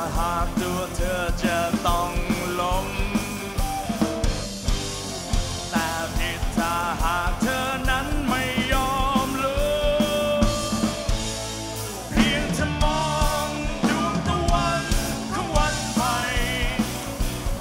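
Rock song with a singing voice carrying a wavering melody with vibrato over electric guitars and a steady drum beat; the band drops back just before twelve seconds in, then comes back in louder.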